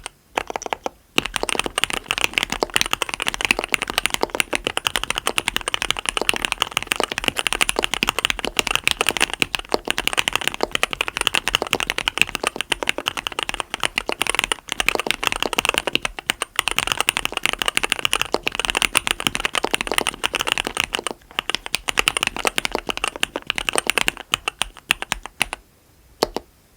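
Fast, continuous typing on a mechanical keyboard with Cherry MX RGB Black linear switches on 55 g progressive SPRiT springs, a SUS304 stainless steel plate and Leopold keycaps. It is a dense run of keystrokes with a few short pauses, and it stops near the end.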